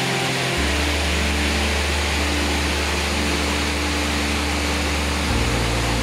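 Steady rush of waterfall water, with background music's long held bass notes underneath that change about half a second in and again near the end.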